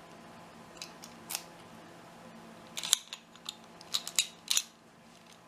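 Key being worked in a 5-pin Zone discus padlock: small metallic clicks, a couple in the first second and a half, then a cluster of sharper clicks about three seconds in and another about four seconds in.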